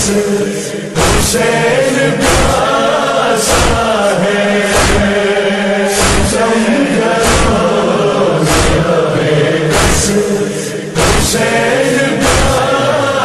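Crowd of men chanting a Muharram noha in unison, with a loud collective beat about every 1.2 seconds from mourners' chest-beating (matam).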